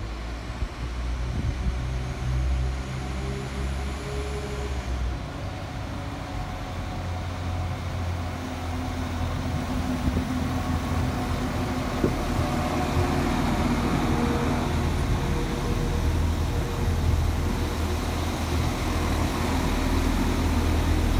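Diesel passenger train engines running with a low, steady drone, growing gradually louder.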